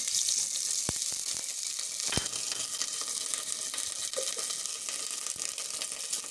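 Ginger-garlic paste sizzling in hot oil in an enamel pot, being fried to light brown. Two sharp clicks sound about one and two seconds in.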